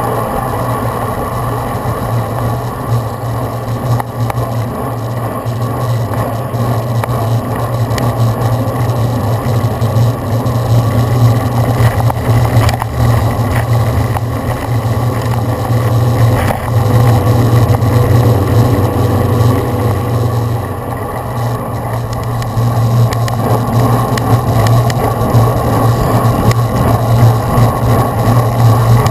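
Loud, steady wind rumble and road noise on a bike-mounted GoPro Hero2 camera moving at riding speed.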